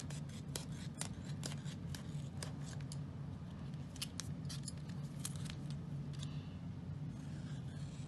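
Small scissors snipping repeatedly as they trim double-sided adhesive tape flush along the edge of a plastazote foam shape: a quick run of short, sharp snips that thins out after about six seconds, over a steady low hum.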